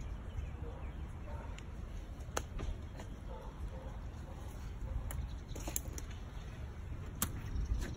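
Quiet outdoor ambience: a low, steady rumble with faint bird calls and a few sharp clicks scattered through it.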